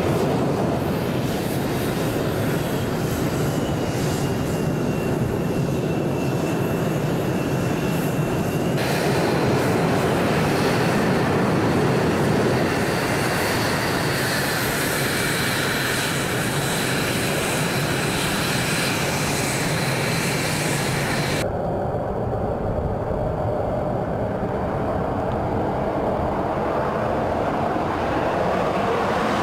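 CF-188 Hornet fighter jets' twin General Electric F404 turbofan engines running on the runway: a steady rumble with a high whine over it. The sound changes abruptly twice, the last stretch duller with the whine gone.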